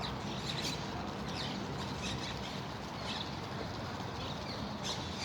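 Steady rush of flowing water with small birds chirping repeatedly over it, and a faint low steady hum underneath.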